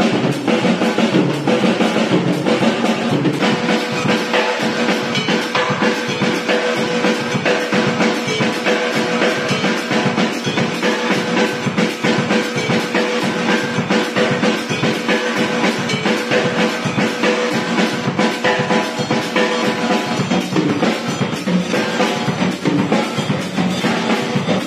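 Drum kit played in a fast, busy samba groove: bass drum, snare and tom strokes follow one another without a break. A steady ringing tone sits under the drumming from about three seconds in.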